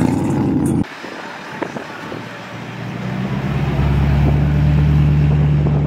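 A loud passage cuts off abruptly about a second in. Then a lifted Ford F-250 pickup's engine comes up, running with a deep, steady note as the truck rolls slowly past, growing louder before holding steady.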